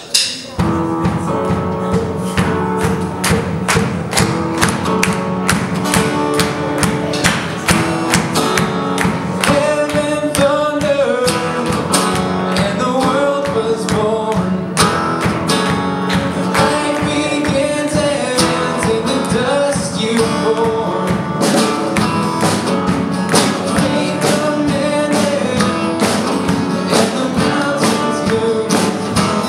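Live worship band playing a song: acoustic guitar strumming over a steady drum beat, with voices singing the melody from about ten seconds in.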